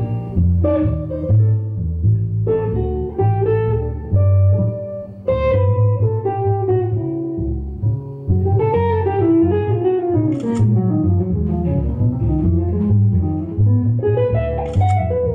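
Live jazz: a hollow-body electric guitar playing chords and melody over a plucked upright double bass line.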